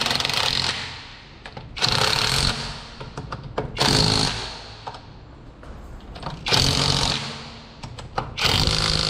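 Impact wrench running lug nuts onto a car wheel's studs in five short bursts, each under a second, about two seconds apart. The nuts are only being snugged, not torqued down.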